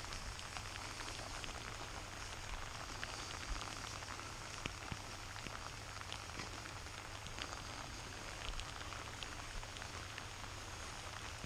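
Steady rain falling, with many small sharp drop hits close by.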